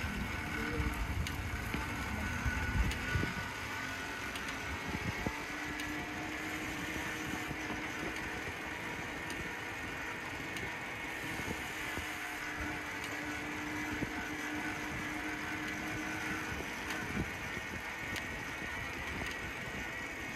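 Bicycle being ridden on a paved path: steady tyre noise with the mechanical rattling and clicking of a noisy bike's drivetrain, and a heavier low rumble over the first few seconds.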